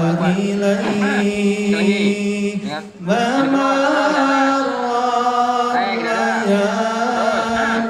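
A voice chanting a ruqyah recitation in long held notes that waver and bend in pitch, with a brief break about three seconds in.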